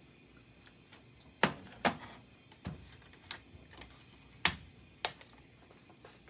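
About six separate sharp clicks and knocks at an irregular pace, the loudest a pair about a second and a half in and another past four seconds, like hard objects being handled and set down.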